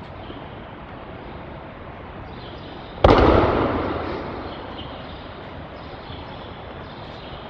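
A single loud slap-thud about three seconds in that dies away over a second or so in the echo of a large hall: an aikido partner landing in a breakfall on the mat after a kokyu-ho throw. Steady hiss underneath.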